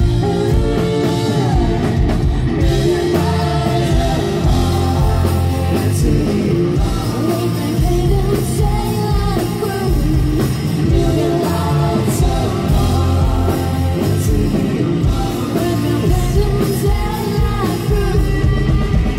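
Live rock band playing: a woman singing over electric bass, electric guitar and a drum kit.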